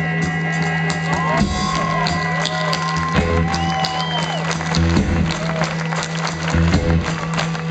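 Live rock band playing an instrumental passage: drums and a steady low drone under sliding, bending guitar notes.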